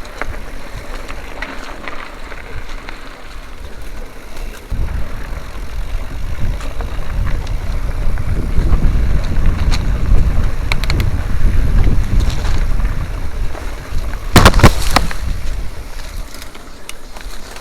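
Wind buffeting a helmet-mounted action camera's microphone while a mountain bike descends a rough trail. A low rumble starts abruptly about five seconds in and fades near the end. Scattered clicks and a louder rattle of the bike come about two-thirds of the way through.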